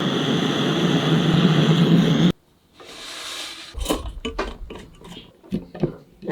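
An antique brass pressure blowtorch burning with a steady rushing noise that cuts off suddenly after about two seconds. Then, after a moment's quiet, come a faint hiss and a series of light clicks and knocks as brass torch parts are handled.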